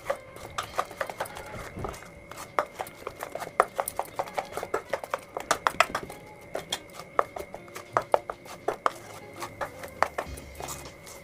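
A hand mixing thick ground lentil batter with spices in a stainless steel bowl: irregular wet clicks and taps, several a second.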